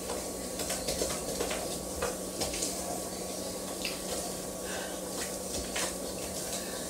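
Wooden spoon stirring thick fruit cake batter by hand in a stainless steel bowl: faint scraping and squishing with scattered light knocks of the spoon against the bowl.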